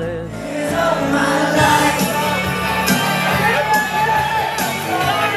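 Loud dance music with singing, and a crowd of dancers' voices and shouts over it.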